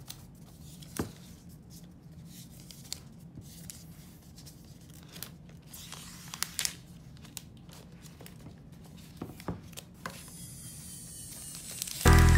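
Protective plastic film and its paper pull-tab being peeled off a new laptop: quiet crinkling and tearing with scattered sharp crackles. Loud music starts just before the end.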